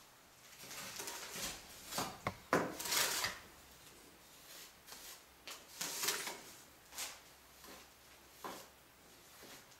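A small hand trowel scraping and knocking against the clay and brick inside an opening in a clay-infilled timber-frame wall, in irregular short strokes, the loudest a couple of seconds in.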